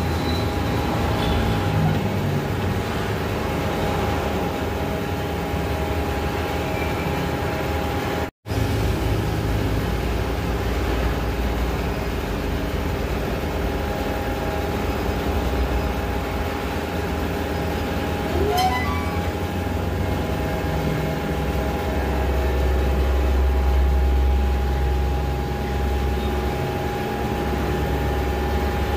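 Steady low drone of tyre-shop machinery with a constant hum, swelling for a few seconds about three-quarters of the way through, and a short rising squeak about two-thirds in.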